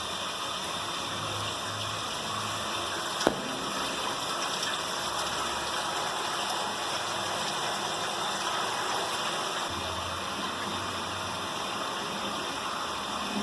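Water running steadily through the open fill valve of a water-jug washing machine, filling a jug. A single sharp knock about three seconds in.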